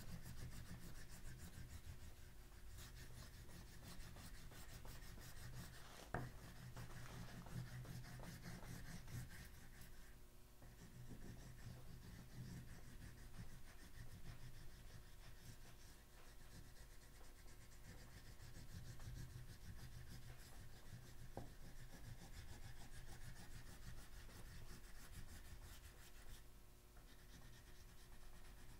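Oil pastel rubbed back and forth on paper, shading in a large area; faint, with a couple of light ticks along the way.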